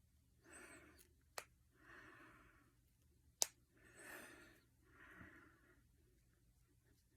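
Two sharp finger-knuckle cracks, about two seconds apart, the second louder, with soft breaths in and out around them.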